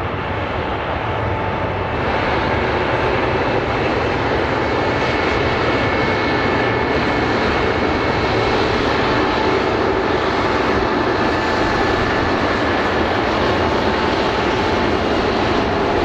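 Bell CH-146 Griffon helicopter's twin turbine engines and rotor running, a steady loud noise with a faint high whine.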